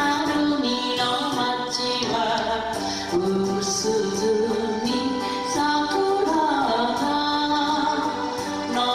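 A woman singing a song into a microphone, with instrumental backing.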